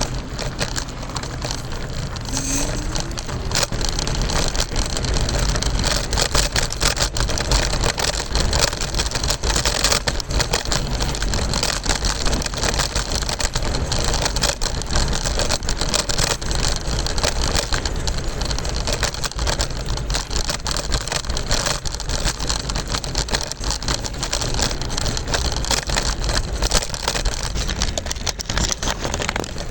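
Scooter wheels rolling over pavement: a steady rumble with a dense run of small rattles and knocks.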